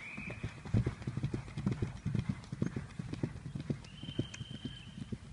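A horse's hooves thudding on grass turf at a canter, in quick repeated groups of beats, loudest as it passes close in the first half. About four seconds in, a steady high tone sounds for about a second.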